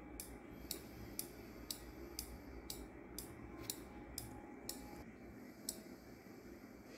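Faint ticking of a quiz countdown timer sound effect, about two ticks a second, the ticks stopping near the end as the count runs out.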